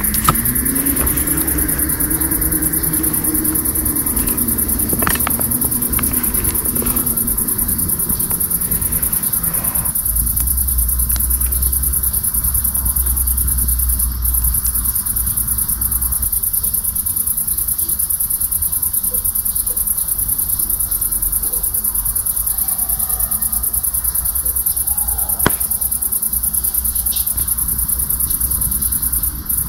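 Crickets chirring in a steady, high-pitched, unbroken trill. A low hum rises in pitch during the first few seconds, with a low rumble partway through.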